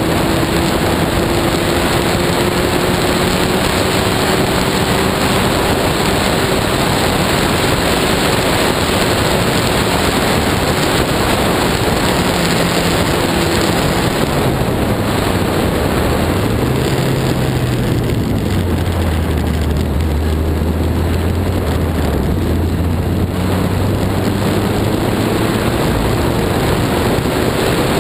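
Lotus 61 Formula Ford's engine heard from the car's onboard camera, running at high revs under a heavy rush of wind and wet-track noise. About halfway through the revs drop and the engine note falls low for several seconds as the car slows, then climbs again near the end as it accelerates.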